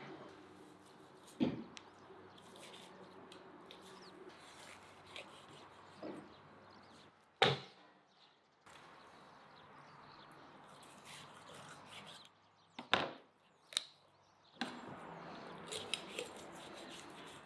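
Raw chicken being cut up with a large kitchen knife on a wooden cutting board: a few sharp knocks of the blade striking the board, several seconds apart, with quieter handling clicks between.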